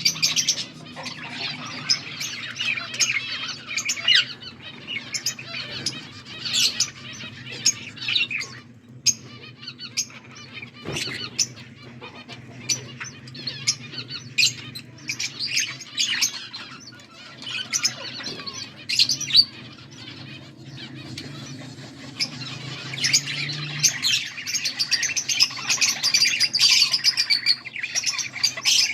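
Budgerigars chirping and warbling, a dense stream of rapid, sharp chirps that gets busier and louder in the last few seconds. A faint steady low hum runs underneath and fades out near the end.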